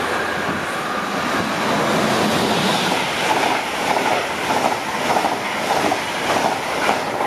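A train passing at speed close by: a loud, steady rushing of wheels on rail, with a regular clickety-clack of the wheels over the rail joints setting in about halfway through.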